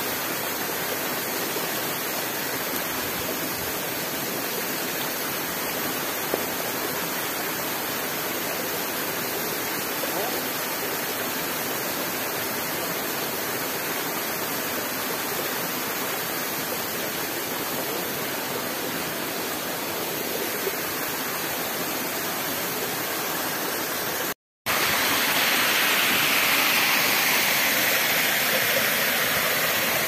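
Steady rush of water pouring over a small rocky waterfall into a creek. About 24 seconds in, after a brief dropout, the rush turns louder and fuller.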